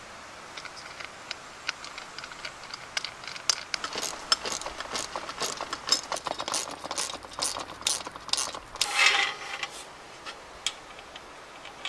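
Sharp metallic clicks and rattles of hand tools and bolts as brackets are fitted, quickening into runs of rapid clicking like a socket ratchet being worked. A short scrape or rustle about nine seconds in.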